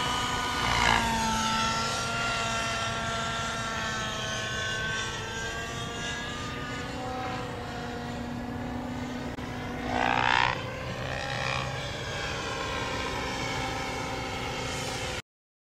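Model helicopter's engine and rotor whining through an aerobatic stall turn, a stack of pitches drifting up and down as it flies. About ten seconds in the sound swells with a quick rising sweep, and it cuts off abruptly near the end.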